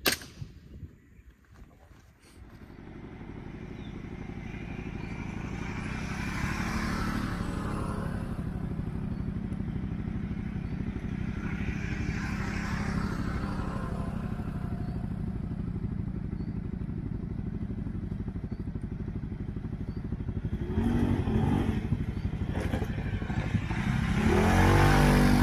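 Segway Snarler ATV engine coming up about two seconds in and running steadily under way, then revving up near the end with its pitch rising.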